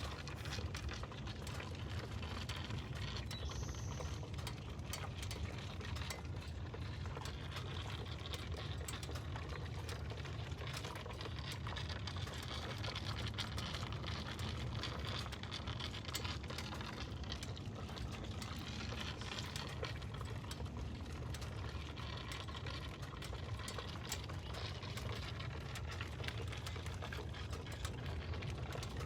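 A vehicle with its engine switched off still making a noise: a steady low hum under a constant, irregular crackle of small clicks. The cause is unknown to the owner.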